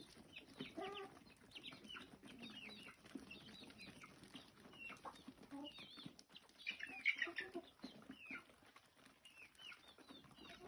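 A flock of chickens clucking and calling, with many short high calls overlapping one another; the calls bunch up and are loudest about seven seconds in.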